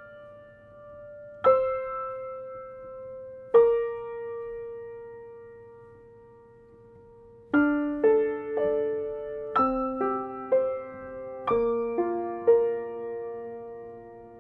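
Piano intro to a slow ballad. Three notes are struck about two seconds apart and left to ring, the third fading over about four seconds. From about halfway, quicker notes and chords come roughly every half second.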